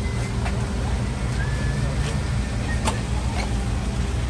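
Mini excavator's diesel engine running steadily, with a few sharp knocks, the loudest nearly three seconds in.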